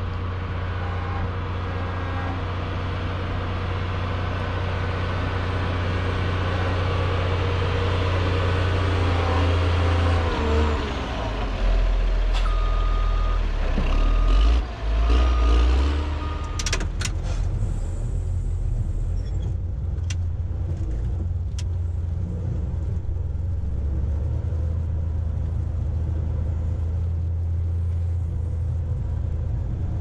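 Caterpillar 120H motor grader's diesel engine running steadily, its note shifting and dipping briefly about halfway through. A few short beeps and some clicks come in the middle.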